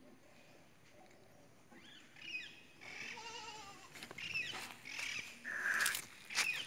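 Goat bleating: several wavering calls starting about two seconds in, with a few sharp clicks near the end.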